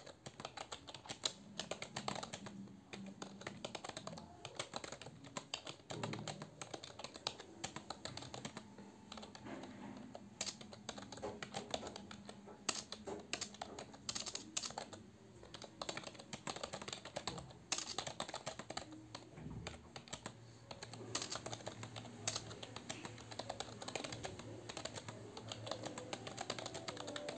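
Fast, continuous typing on a computer keyboard, many irregular key clicks a second with short pauses between bursts.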